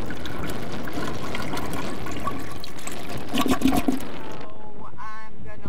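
Heavy wind noise buffeting the microphone of a phone filmed from a moving car: a steady rush with a few stronger gusts about three seconds in. Near the end a voice comes in as the wind drops back.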